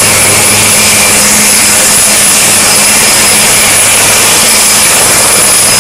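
HAL Light Combat Helicopter's turboshaft engines running with the rotor turning: a loud, steady turbine whine with high whistling tones over a rushing noise.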